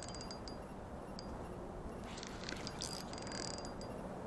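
Spinning fishing reel clicking rapidly and evenly as it is cranked, stopping about half a second in, then a short burst of clicking and rasping from the reel about two to three and a half seconds in, over a steady low background noise.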